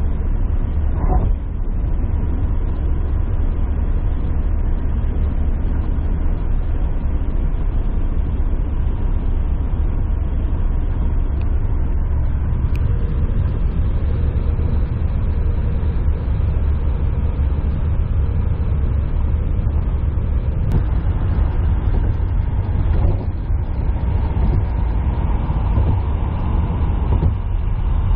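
Road noise inside a moving car's cabin at highway speed: a steady, deep rumble of tyres and engine.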